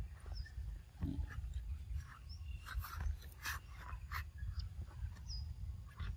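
Outdoor ambience: a steady low wind rumble on the microphone, a handful of sharp clicks or crunches in the middle, and a few brief high chirps.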